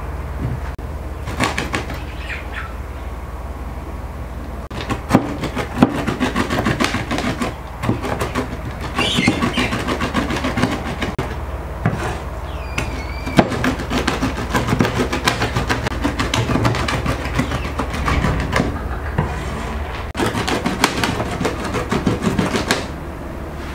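A two-handled curved rocking knife chopping walnuts on a wooden board: rapid, irregular knocks and crunches as the blade rocks back and forth. The chopping gets busier after about five seconds.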